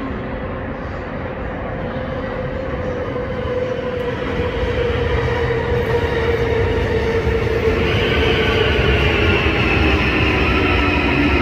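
Busan Metro Line 3 train with Hyundai Rotem IGBT-VVVF traction inverters pulling into the station and braking: the inverter whine falls steadily in pitch as the train slows, over the rumble of wheels on the track, growing louder as it comes alongside. A second, higher whine joins about eight seconds in and also falls in pitch.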